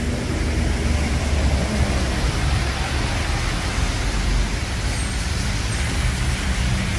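Rain and city traffic on a wet street: a steady hiss of rain and tyres on wet asphalt over a continuous low rumble.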